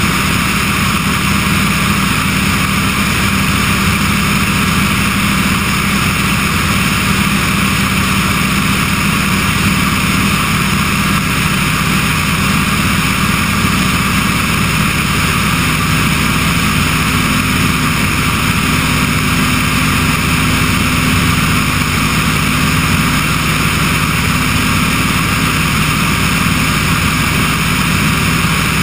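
Remos G3/600 light-sport aircraft's Rotax 912 engine and propeller droning steadily in level cruise, with a strong rush of airflow, heard from a camera mounted outside on the wing.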